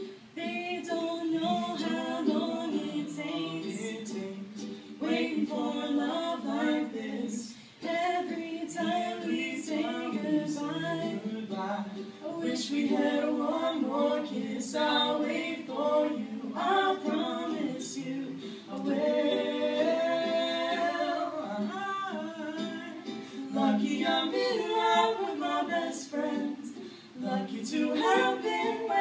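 A girl singing a pop ballad into a handheld microphone, accompanied by a strummed ukulele, in phrases with short breaths between them.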